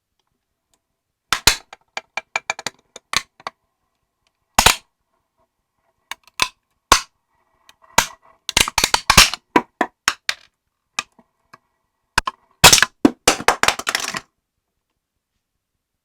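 Apple-shaped kitchen timer's casing cracking and snapping as it is crushed in a vise: loud sharp cracks in irregular bursts, the densest run of breaks about three-quarters of the way through.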